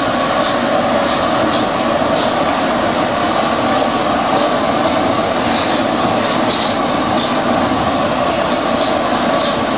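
Paris Métro MP73 rubber-tyred train running steadily through a tunnel: a loud, even running noise with faint clicks now and then.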